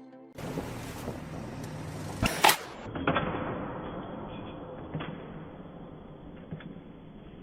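Work-site background noise broken by several sharp knocks, the loudest a close pair of heavy impacts about two seconds in, with smaller knocks after.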